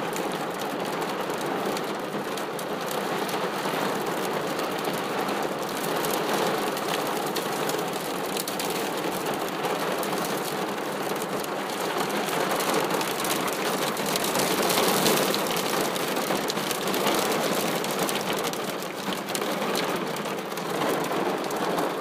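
Hail and rain hitting a car's roof and windows, a dense, steady patter of small ice impacts heard from inside the car.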